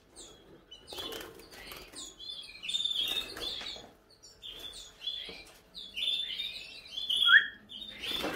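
Young red-factor canary fluttering about a small wire training cage, with short bursts of wingbeats and light knocks, amid short high chirps.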